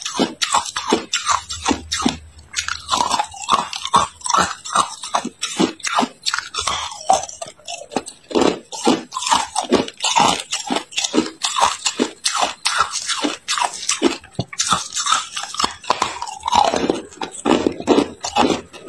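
Hard ice being bitten and crunched between the teeth: a rapid run of crisp crunches, several a second.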